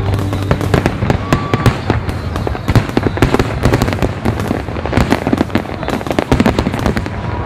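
Fireworks display going off: a dense, rapid series of bangs and crackles, many overlapping.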